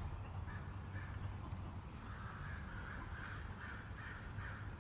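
Crows cawing, a run of short calls repeated about three times a second: alarm cawing of the kind that means a hawk is close by.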